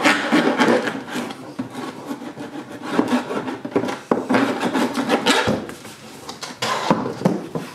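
Hand file rasping back and forth over the freshly cut edge of a hole in a plastic bucket, smoothing it, in a series of scraping strokes.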